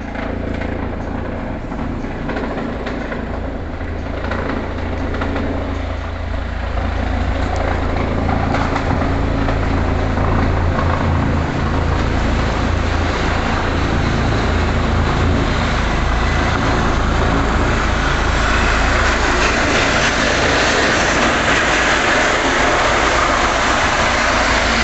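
Eurocopter EC135 rescue helicopter's rotor and turbines, a steady heavy rumble growing louder as the helicopter comes in and descends to land on the helipad. The hissing turbine and rotor-wash noise strengthens over the last several seconds.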